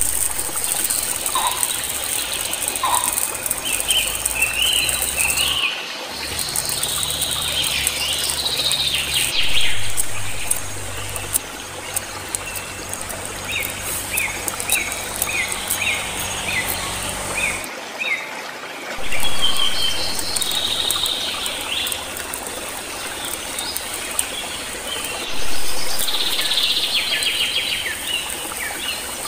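Small birds chirping over and over, in short quick calls, with a knife tapping against a wooden cutting board as chilies and shallots are sliced.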